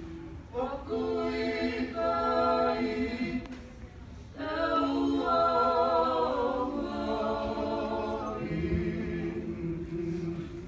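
A group of men and women singing together unaccompanied, in held notes. The singing drops away briefly about four seconds in, then comes back louder.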